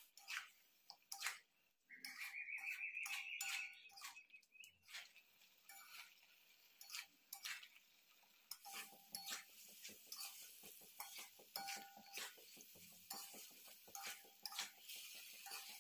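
A metal spatula scraping and clicking against a metal kadai as snails are stirred into a thick masala curry, some strokes ringing faintly. About two seconds in, a high wavering sound lasts for about two seconds.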